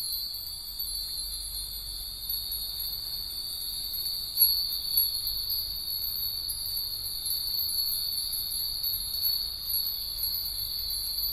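Hundreds of Japanese furin wind bells tinkling together in a continuous high shimmer, with a louder ring about four and a half seconds in.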